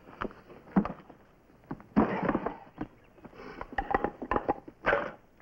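Knocks and clatter of split firewood logs being handled and set down, loudest about two seconds in, with smaller clicks and knocks between.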